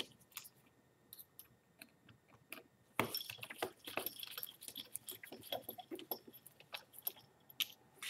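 Light clicks and clattering of small precision screwdrivers against the tablet's plastic back cover as it is handled. A few scattered clicks come first, then a dense run of taps and rattles from about three seconds in until near the end.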